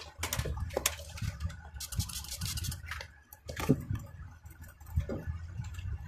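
Makeup containers and tools being handled: scattered light clicks and knocks, one sharper knock a little past halfway, and a brief rapid rattle about two seconds in.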